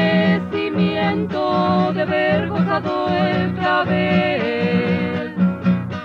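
Chilean folk music from a 1981 recording: strummed acoustic guitar under a melody of long held notes, with a falling slide about four and a half seconds in.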